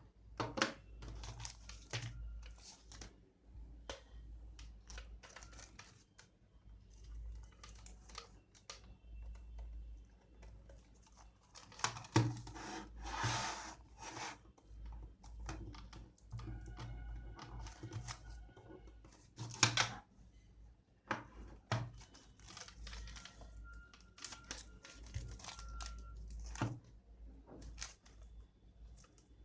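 Product packaging being handled and opened: irregular rustling, crinkling and tearing with scattered clicks and knocks, including a longer stretch of crinkling about thirteen seconds in.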